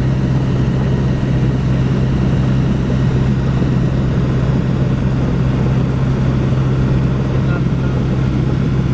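Cessna 172's piston engine and propeller heard from inside the cabin as a steady, even drone.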